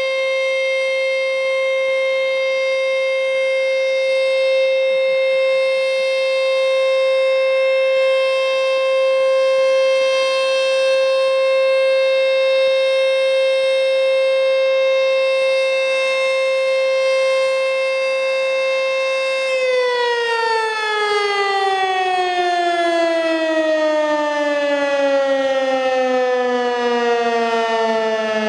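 American Signal T-121 tornado siren sounding its steady alert tone. About twenty seconds in it shuts off at the end of the three-minute alert and winds down, its pitch falling steadily.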